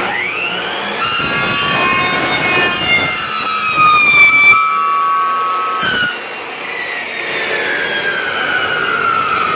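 Electric cut-off saw starting with a sudden whine and cutting through hydraulic hose, its pitch sagging under load. Near the middle it stops cutting and winds down in a long falling whine.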